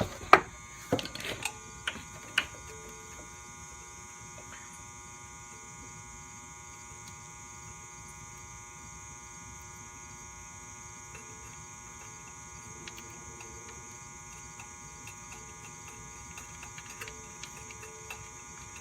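A few sharp metallic clicks and knocks in the first couple of seconds, tools being handled at a motorcycle's oil pan drain screw, then a steady electrical hum with a few faint ticks.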